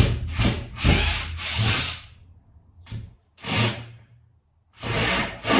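Screwdriver bit scraping and slipping in a screw head that won't turn, in short harsh bursts: a quick run over the first two seconds, then two more after pauses. The bit is failing to grip because the screw has the wrong type of head for it, and she first took it for stripped.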